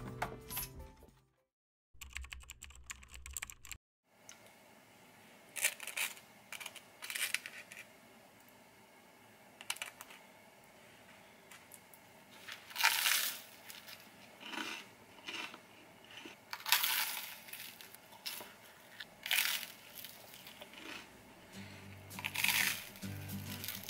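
Table knife scraping over a slice of toast as jam is spread on it, in short separate scrapes a few seconds apart.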